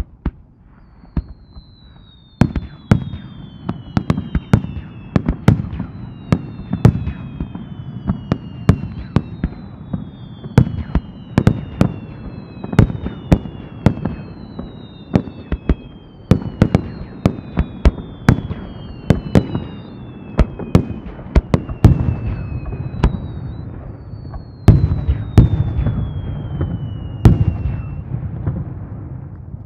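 Aerial fireworks barrage: a rapid string of sharp shell bursts, several a second, starting about two seconds in, with repeated whistles falling in pitch laid over the bangs.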